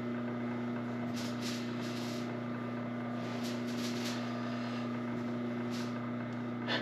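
Several brief rustles of stretchy fabric as a sewn helmet liner is turned over and handled, over a steady electric hum.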